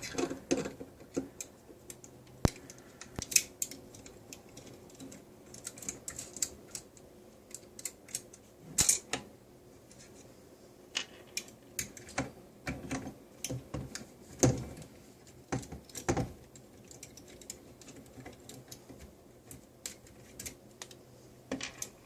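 Irregular small clicks, taps and scrapes of a screwdriver and hands working on an M4 airsoft gun's front end while taking out two screws, with a few louder knocks along the way.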